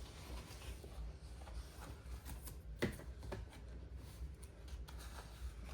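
Light rustling of paper sticker sheets and planner pages being handled, with a few soft taps and one sharper tap a little under three seconds in.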